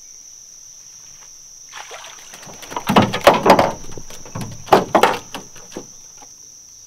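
A hooked channel catfish thrashing and splashing as it is hauled out of the water on a limb line, in a few loud bursts around the middle. Insects drone steadily throughout.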